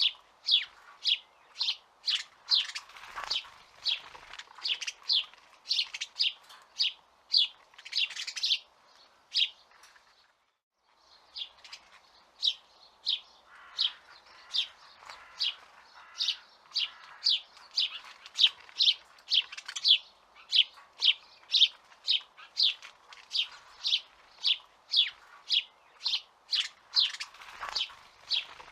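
A small songbird chirping over and over, short sharp chirps about two or three a second, breaking off for about a second roughly ten seconds in before carrying on.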